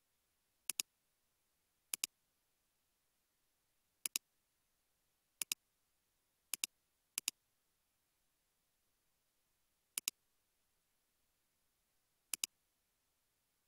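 Computer mouse button clicks: eight separate clicks at uneven intervals, each a crisp press and release, with near silence in between.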